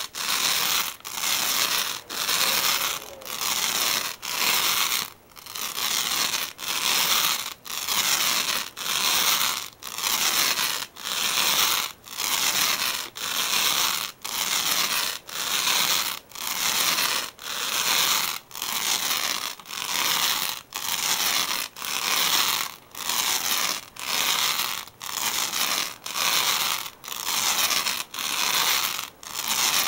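Adhesive lint roller rolled back and forth over a tatami mat, its sticky sheet peeling off the straw with a crackling rasp. The strokes come in an even rhythm, about three every two seconds.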